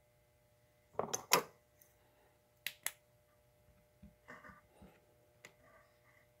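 Handling noises from a carburetor body being turned over in the hand: a cluster of knocks about a second in, two sharp clicks a little later, then a few softer rattles and a single click.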